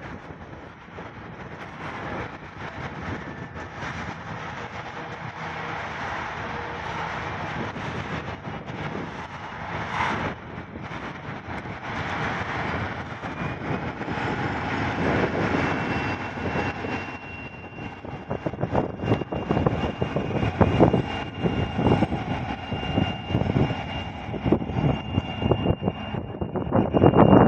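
A string of tank wagons rolls past with the wheels clattering over the rail joints. An SM42 diesel-electric shunting locomotive follows, its diesel engine running steadily as it passes. Irregular gusts buffet the microphone over the last several seconds.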